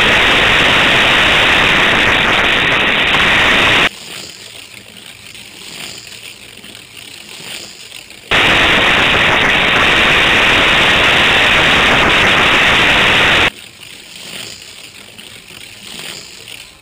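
Toy slot car running on a plastic track, picked up as loud, harsh, distorted noise. The noise comes in two stretches of about five seconds each that cut in and out abruptly, with much quieter running noise between them.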